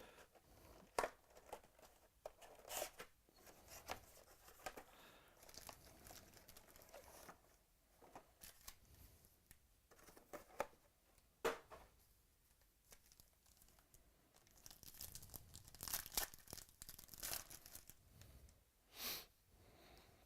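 Trading-card box and pack wrappers being torn open and handled: soft tearing and crinkling in short scattered bursts, busiest a few seconds before the end.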